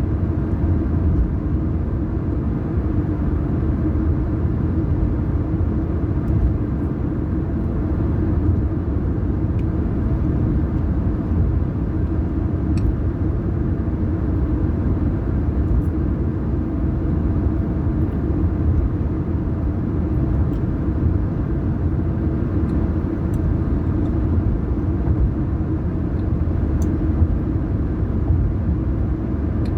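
Car driving at a steady speed: an even low rumble of tyres and engine with no change in pace, with a few faint ticks.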